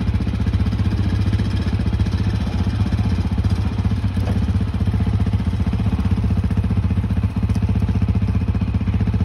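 Quad bike engine idling steadily with an even, rapid putter as the bike is ridden slowly down off a ute tray.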